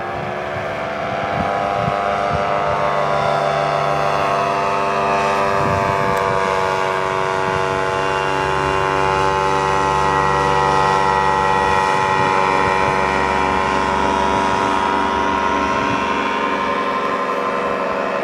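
Paramotor engine and propeller in flight, a steady droning hum whose pitch edges up slightly in the first couple of seconds and then holds.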